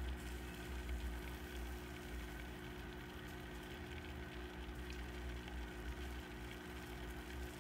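Faint steady low hum with a light hiss, and no distinct sound events.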